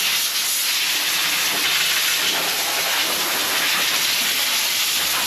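A loud, steady hiss that starts just before and cuts off after about five and a half seconds.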